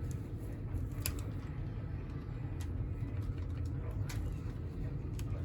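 Light clicks and taps of hard plastic, a few seconds apart, as a pelt-retaining clip is worked loose from a Squawkers McCaw parrot toy's plastic shell. A steady low hum runs underneath.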